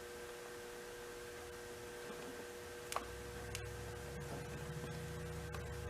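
Faint steady electrical hum with a couple of higher whining tones. A single sharp click comes about halfway through, after which a low rumble sets in along with a few small ticks.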